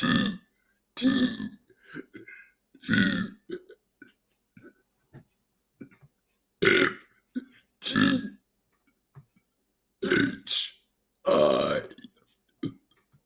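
A person belching out letters of the alphabet, about eight separate drawn-out belches one to three seconds apart.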